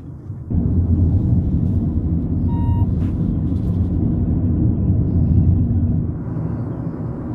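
A moving car's road and engine noise heard from inside, a steady low rumble that starts suddenly about half a second in and eases a little near the end. A short beep sounds briefly about two and a half seconds in.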